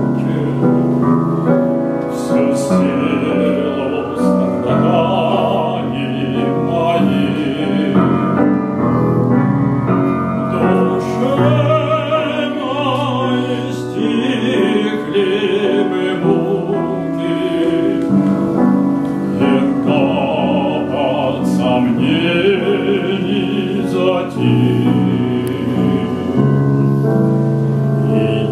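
A man singing a Russian romance in operatic style with a wide vibrato, accompanied by a grand piano. Long held, wavering notes come near the middle.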